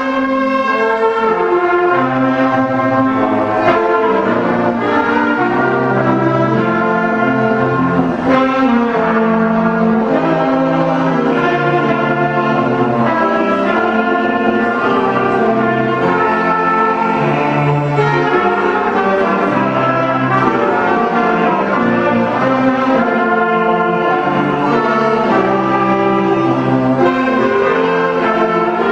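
A student orchestra of violins, cello, saxophones and trumpets playing the school song without singing.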